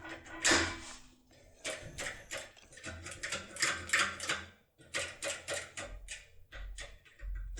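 Rapid metallic clicking and scraping of a foil impression pick being worked inside a Masterlock pin cylinder, with one louder click about half a second in.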